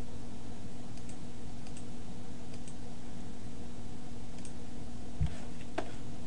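Scattered faint clicks from computer mouse and keyboard use over a steady electrical hum and hiss, with a soft low thump about five seconds in.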